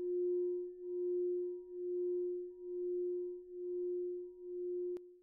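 A single sustained ringing tone at one steady pitch with faint overtones, swelling and fading about once a second. Near the end a sharp click cuts in and the tone drops much lower in level.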